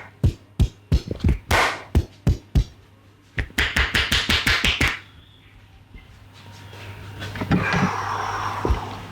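Hands striking during a percussive Indian head and back massage. First come irregular slaps, then a fast even run of about ten strikes a second, then a swelling rustle of rubbing in the last few seconds, over a steady low hum.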